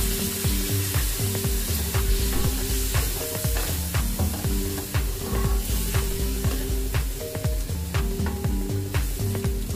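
Chicken curry sizzling in a metal pan as a little water is added, with a spatula stirring and scraping against the pan in frequent sharp clicks.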